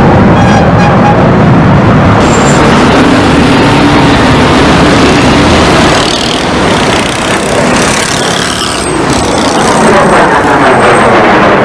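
Loud, continuous jet-engine noise of F-16 fighter jets flying past low. It eases off a little about six seconds in, then swells again with a sweeping rise and fall in pitch near the end as a jet passes.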